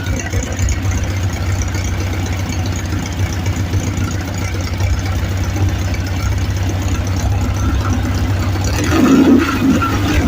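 Volkswagen engine running on LPG gas, idling steadily.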